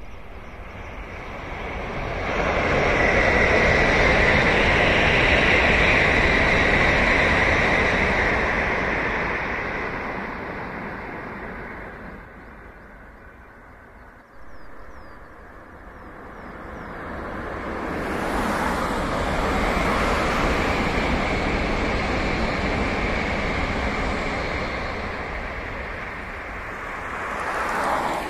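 Two Tokaido Shinkansen high-speed trains passing on an elevated viaduct, one after the other. Each is a rushing swell that builds and fades over about ten seconds, and the second begins about halfway through.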